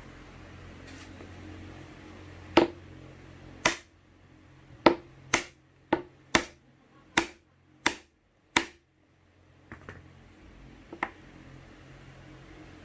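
Mallet blows on a scrap wood block, driving a dovetail tenon into its mortise: about nine sharp knocks over some six seconds, then two lighter taps.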